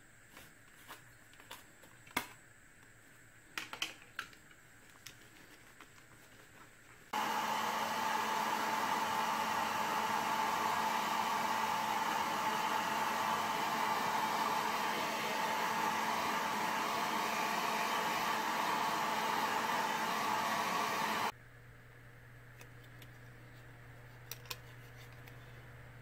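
A handheld hair dryer switched on about seven seconds in, running steadily at a constant pitch for about fourteen seconds and then cut off abruptly, blowing water off washed remote-control parts. A few light clicks and taps come before it.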